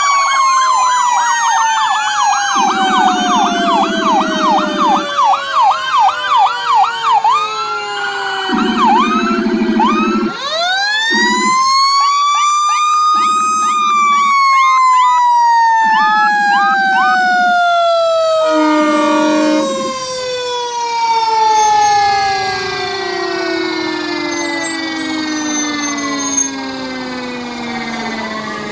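Sirens of a police SUV and fire engines driving past: a fast yelp for the first several seconds, then a wailing siren that rises about ten seconds in and falls slowly in pitch, with repeated low horn blasts throughout.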